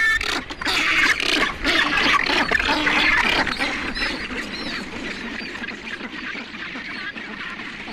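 Rockhopper penguins calling in a dense colony, a pair's display calls loudest in the first few seconds, then falling back to the general calling of the colony.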